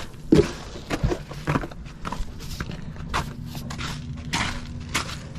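Footsteps crunching through snow, an irregular run of steps about one or two a second, as someone climbs over a snowbank.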